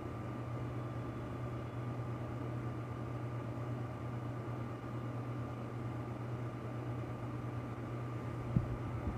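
Steady low mechanical hum with a thin high whine and a soft hiss, unchanging throughout; one short click near the end.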